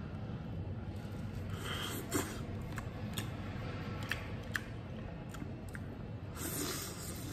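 Close-up eating sounds: a man chewing and slurping noodles and chicken, with a few small sharp clicks, over a steady low hum.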